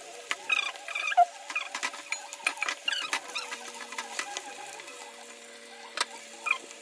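Chicken pakodi pieces deep-frying in hot oil in an aluminium pot, sizzling with many small crackles and pops, while a metal ladle stirs them. A single sharp click about six seconds in.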